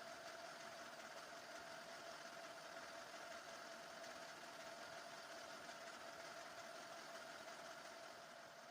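Metal lathe running steadily: a faint, even hum with a constant tone.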